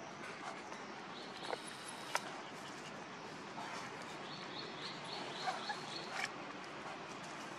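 Outdoor background hiss with two short runs of faint, high, evenly spaced chirping calls, a little after the start and again in the middle.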